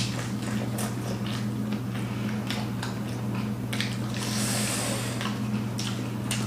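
Fuchka (crisp puri shells) being bitten and chewed fast, with irregular crunches and wet squelches, over a steady low hum.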